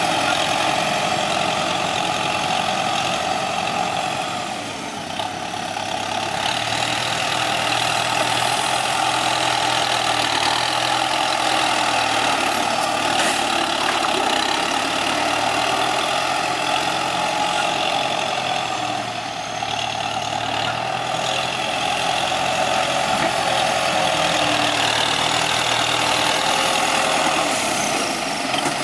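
Kubota M9540 tractor's four-cylinder diesel engine running steadily while the tractor pushes and grades soil with a front blade. It eases off briefly twice, about five seconds in and again about twenty seconds in.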